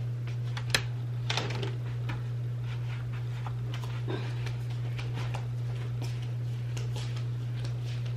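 A steady low hum with scattered faint clicks and taps from a tall standing mirror being picked up, handled and carried across the room.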